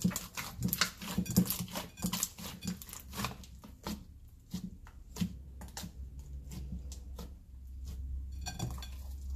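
Foamy toothpaste slime squelching, crackling and popping as hands squeeze and knead it in a glass bowl, in a dense run of irregular clicks that thins out after a few seconds.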